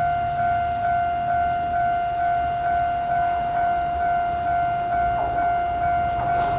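Japanese railway level-crossing warning bell ringing a repeated electronic tone, about two rings a second, the signal that a train is approaching.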